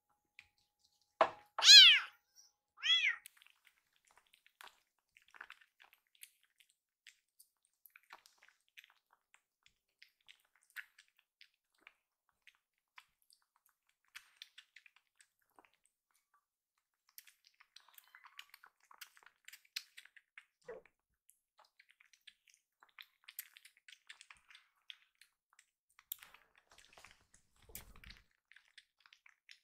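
A kitten meows three times in quick succession about two seconds in, each call rising and falling, the middle one loud. Afterwards come only faint scattered clicks, a kitten suckling at a milk bottle's nipple.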